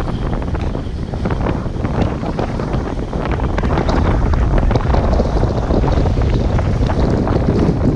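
Strong wind buffeting the microphone over the rushing, splashing water along the hull of a wooden cutter sailing fast and heeled over. It gets a little louder about halfway through.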